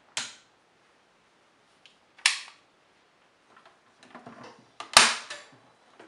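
Sharp clicks and knocks as a hand handles the Miele W1 toy washing machine's control panel and casing: three distinct clicks, near the start, a little after two seconds and the loudest about five seconds in, with a few fainter taps between. No motor sound runs under them.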